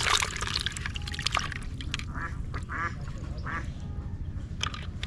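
Ducks quacking, three short calls a couple of seconds in. At the very start, water splashes in a plastic bucket as a fish is dropped in.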